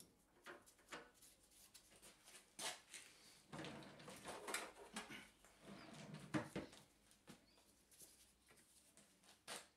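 Faint handling noise at a stopped lathe: scattered light clicks and short rustles, a few slightly louder knocks in the middle.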